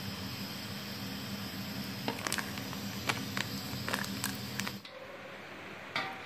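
Steady background hum with a scatter of light clicks and taps as ingredients are tipped from a plastic container and shaken from a sachet into an aluminium pot. The hum drops to a quieter hiss about five seconds in.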